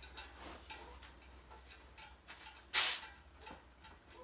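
A bicycle pump head being worked off a tyre valve, with small clicks and taps, and a short hiss of air a little under three seconds in as the pump head comes off the valve of a tyre pumped to 95.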